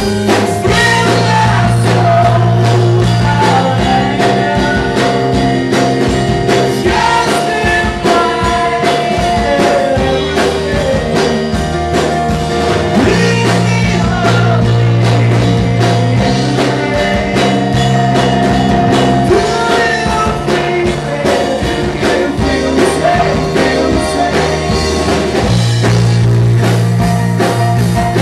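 Live rock band playing a song: a singer over drums, guitar and keyboard, with held low bass notes that change every few seconds.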